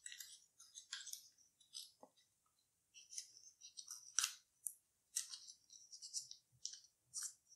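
Origami paper faintly rustling and crackling in short scattered crinkles as it is folded and creased by hand, with one crisper crackle about four seconds in.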